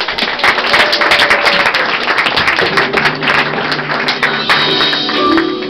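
Music with a dense, irregular patter of claps or taps, giving way about halfway through to plucked guitar notes.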